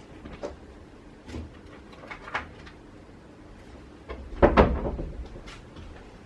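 Small clicks and knocks of objects being handled and moved while looking for a pair of tweezers, with one louder clunk about four and a half seconds in.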